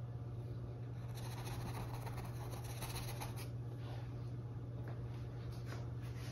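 A paintbrush's bristles scratching and scrubbing through acrylic paint for about two and a half seconds, starting about a second in, with a few fainter brush scratches later. A steady low electrical hum runs underneath.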